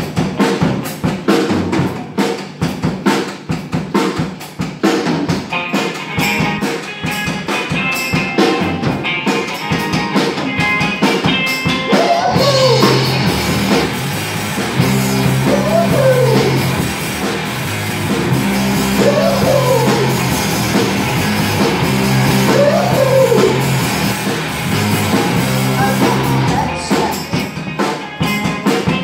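Live rock band playing: drum kit with electric guitars. The first part is driven by busy drum hits; from about twelve seconds in the drums drop back under held chords, and a rising-and-falling phrase comes back about every three and a half seconds.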